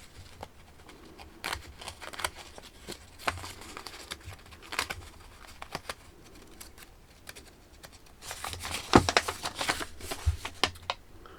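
Rustling and clicking of paper and packaging being handled as an instruction leaflet is unfolded, in scattered light bursts with a busier spell of rustling about eight to nine seconds in.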